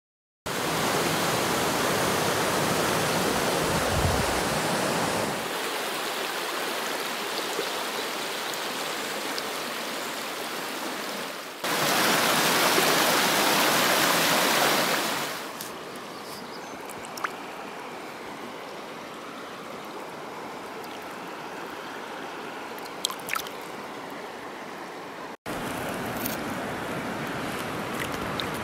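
River water running over rocks, a steady rush and splash that steps abruptly up and down in level several times and is loudest for a few seconds in the middle. A few faint ticks sound over it.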